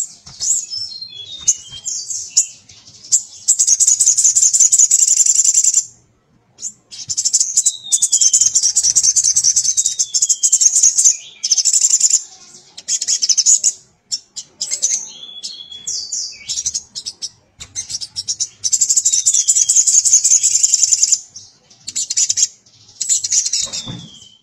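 Male sunbird singing hard: long, fast, rattling trills in bursts of a few seconds with short pauses between, mixed with clear, down-slurred whistled notes.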